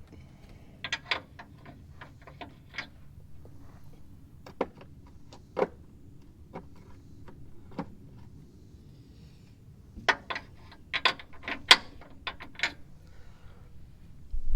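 Irregular sharp metallic clicks and clinks of hand tools working on the truck's bumper mounting hardware. There is a cluster about a second in, a few single clicks in the middle, and a denser run from about ten to thirteen seconds in.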